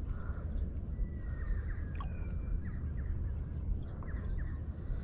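Outdoor ambience on the open water: a steady low rumble with a few faint bird calls, short whistling chirps, from the mangroves.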